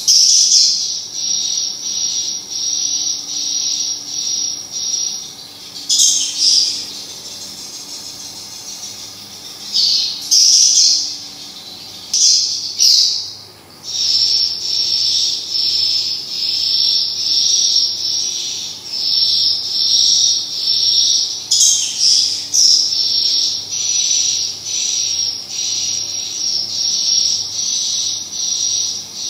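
Edible-nest swiftlet calls filling a swiftlet house: rapid, high-pitched chirps repeating about three times a second, with a few louder bursts of twittering.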